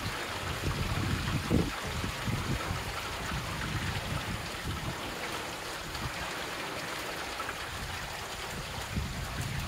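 Steady rainfall hissing down, with trickling water and an uneven low rumble under it. There is a soft thump about a second and a half in.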